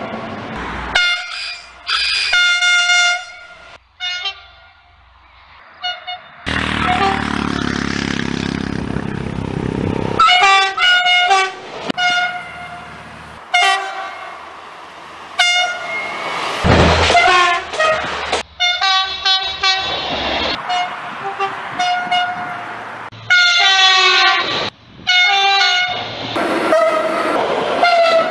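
A rapid series of short French train horn blasts from several different trains, one after another, with the pitch stepping from blast to blast. Near the start they are broken by a few seconds of rushing noise from a passing train.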